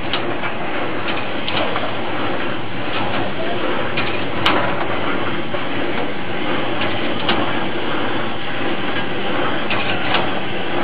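Automatic cashew shelling machine running: a steady mechanical clatter with scattered sharp clicks and knocks, one louder click about halfway through.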